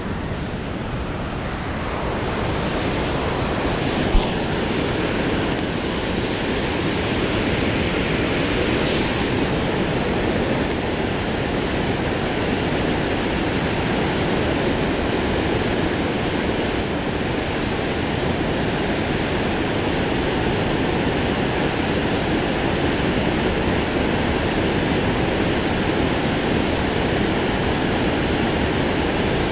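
Steady rushing of a high river pouring through a lock and dam, with no letting up and a hiss that grows a little brighter about two seconds in.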